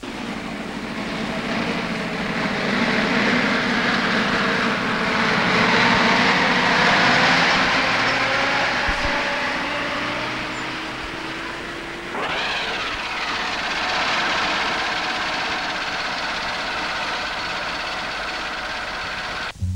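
Diesel engines of heavy earth-moving machinery working. The engine note climbs slowly under a swelling grinding noise that peaks midway. About twelve seconds in it changes abruptly to a different steady machine sound.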